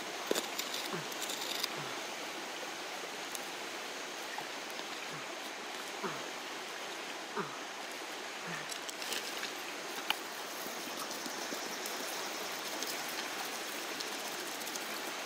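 Soil being scraped and brushed away by hand and with a small wooden tool, heard as a few faint scrapes and taps over a steady rushing noise like running water.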